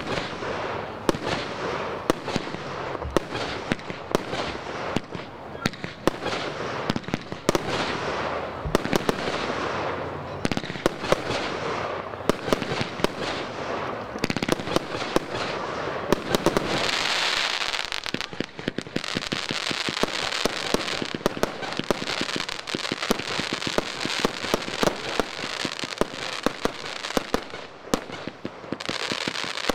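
Fireworks display firing rapid shots and bursts, many bangs a second overlapping. About halfway through, a dense hissing crackle joins the bangs and stays under them.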